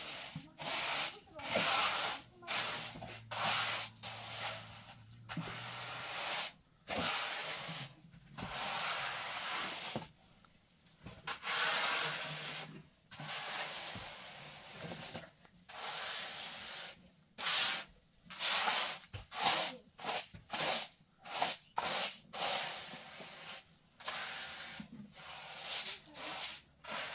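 A trowel scraping and smoothing cement in repeated strokes: a rough, hissing scrape that comes in irregular strokes of about half a second to two seconds, with brief pauses between them.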